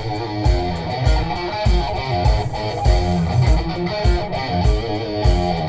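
Live rock band playing a hair-metal song: electric guitar and bass over a steady drum beat, about two beats a second.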